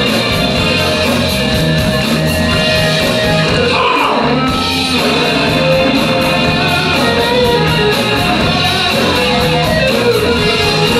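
Live soul band playing an up-tempo instrumental groove: the drum kit keeps a steady beat under electric guitar.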